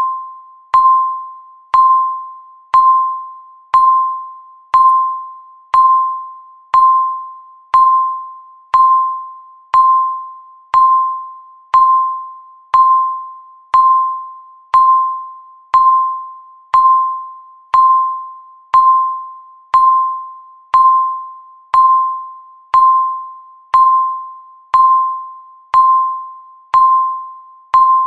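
Countdown timer beep: one steady mid-pitched ding struck once a second, each with a sharp onset and fading away before the next.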